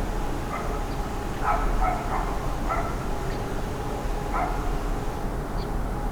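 A dog barking several times in short barks during the first two thirds, over a steady background rumble.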